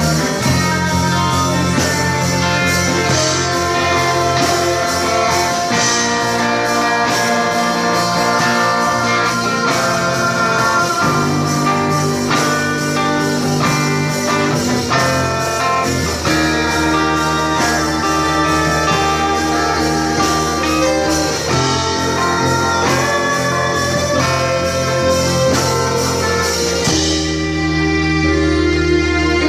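Live band of acoustic and electric guitars with bass and drums playing a slow ballad.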